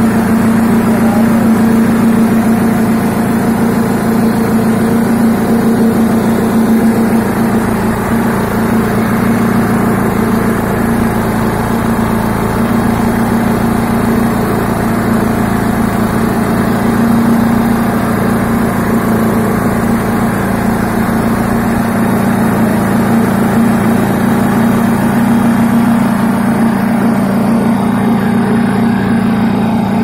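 Electric concrete needle vibrator running: its motor drives a flexible shaft to a poker that compacts fresh concrete among the reinforcement bars. A steady, loud mechanical hum with a strong low tone.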